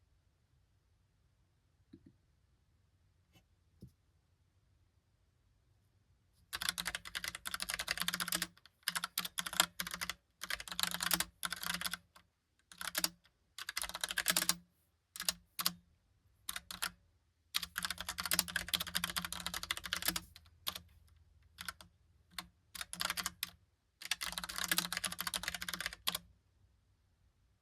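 Typing on a Logitech POP Keys mechanical keyboard with round typewriter-style keycaps: after a few quiet seconds with a couple of faint ticks, rapid runs of key clicks come in bursts broken by short pauses, then stop shortly before the end.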